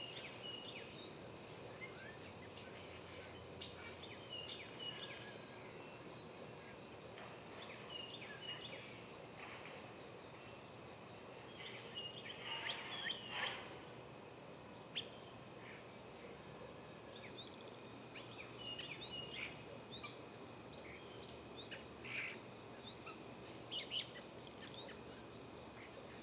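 A steady, high-pitched chorus of trilling insects, with scattered short bird chirps over it, a cluster of louder chirps a little before halfway and again near the end.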